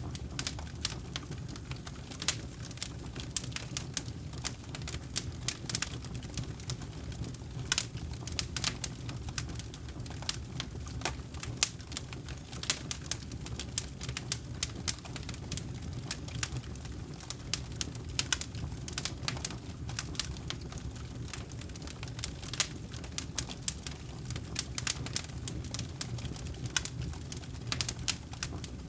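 Wood campfire burning: a steady low rush of flame with frequent, irregular sharp crackles and pops.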